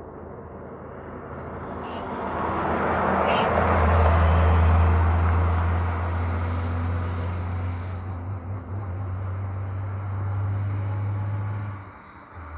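Heavy truck passing close with a deep, steady engine drone, its noise building to a peak about four seconds in and then holding until it drops away suddenly near the end. Two short clicks come just before the peak.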